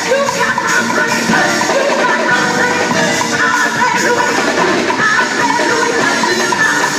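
Live gospel music: women singing into microphones over a band of keyboard, drum kit and electric guitar, played through the stage PA.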